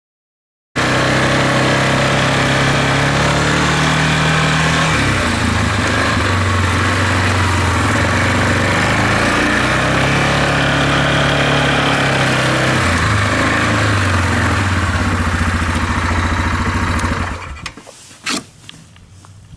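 An ATV engine running, its pitch stepping up and down a few times. It stops near the end, leaving a few sharp clicks.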